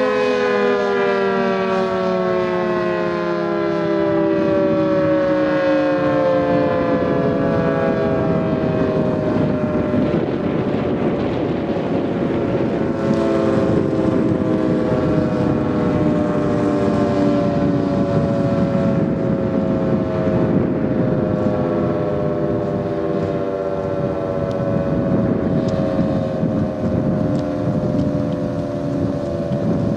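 Federal Signal 2T22 dual-tone outdoor warning siren winding down at the end of its test, its two chords sliding slowly and steadily lower in pitch. Wind buffets the microphone throughout.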